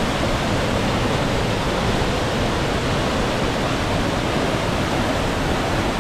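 Steady rush of falling water from Hole in the Wall Falls, an even noise with no breaks.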